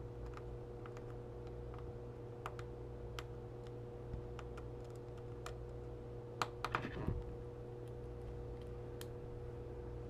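Faint scattered clicks and ticks of a small precision screwdriver turning a tiny screw into a plastic watch mount, with a quick run of louder clicks about six and a half seconds in. A steady low hum runs underneath.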